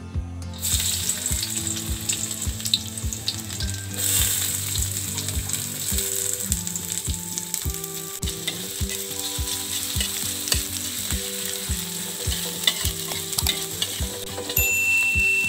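Food frying in hot cooking oil in a pan, a steady sizzle with stirring. The sizzle starts under a second in and gets louder at about four seconds.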